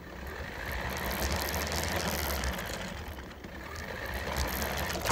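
A toy remote-control monster truck driving over concrete: its small electric motor whining steadily and its plastic body and wheels rattling. A sharp knock right at the end.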